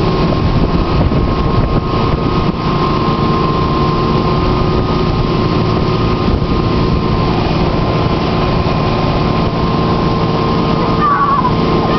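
Motorboat engine running steadily at speed while towing, with wind noise on the microphone.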